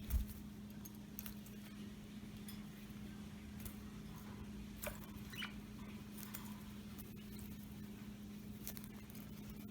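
Budgies bathing: scattered light pattering and small clicks from splashing in water and moving about, over a steady low hum.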